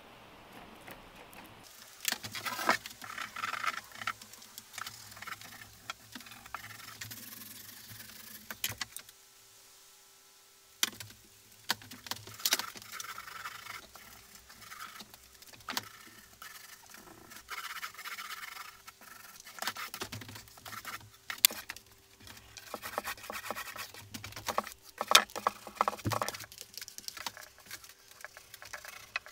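Small paint roller rolling paint onto bare wood in repeated uneven strokes, a tacky scraping and pattering, with a short pause about nine seconds in.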